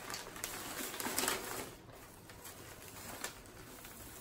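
Newspaper wrapping and shredded-paper packing rustling and crinkling as a plant is unwrapped. The rustling is loudest in the first second and a half, then softer, with one sharp click near the three-second mark.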